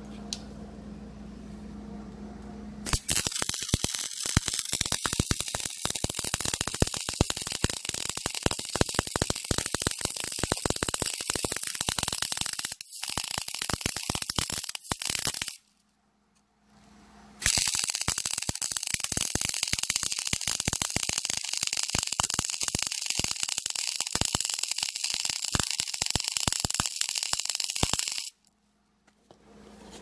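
Hobart gas-shielded MIG welder crackling steadily as it lays a weld bead joining a steel pipe to a hand truck's nose plate. It runs in two passes of about twelve and eleven seconds with a short break between, and a low steady hum is heard when the arc is off.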